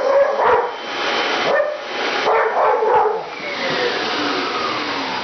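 Pit bull barking repeatedly, a quick string of barks in the first three seconds, over a running vacuum cleaner, which is what he is scared of. A whine falls steadily in pitch over the last two seconds.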